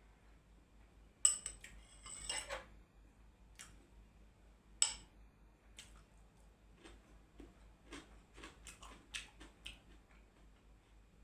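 Eating utensils clinking against a dish a few times, the sharpest clinks about a second in and near five seconds, then a run of fainter small clicks.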